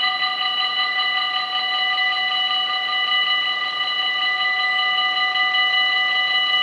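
Dutch automatic half-barrier level-crossing warning bells ringing in a fast, even, continuous ring while the half-barriers lower, warning that a train is approaching.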